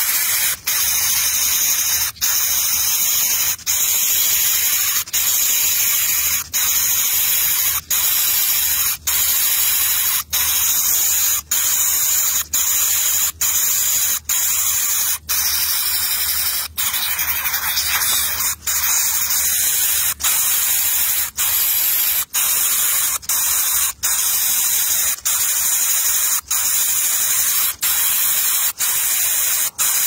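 Nestling bird giving harsh, hissing begging calls over and over, each about a second long with a short break between them.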